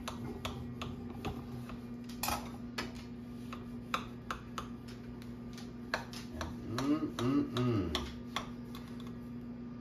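Knife cutting into a baked pie crust in a glass pie dish: irregular small clicks and taps as the blade breaks the crust and touches the dish.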